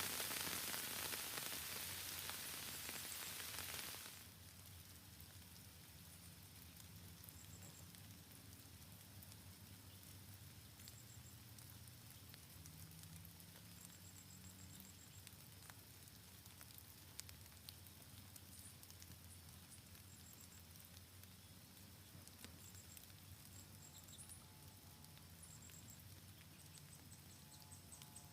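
Steady rain hiss that cuts off abruptly about four seconds in, leaving a quiet forest background with faint, short, very high-pitched chirps repeating now and then.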